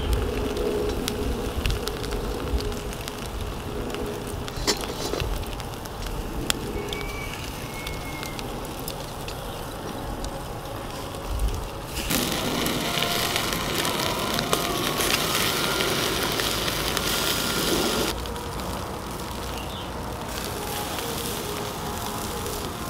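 Chicken wings sizzling on a wire grill over a charcoal fire, with scattered crackles and pops. The sizzle swells louder and brighter for about six seconds past the middle, then settles back.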